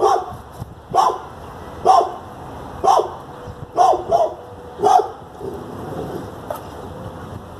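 A dog barking about once a second, seven barks with two close together around four seconds in, then it stops.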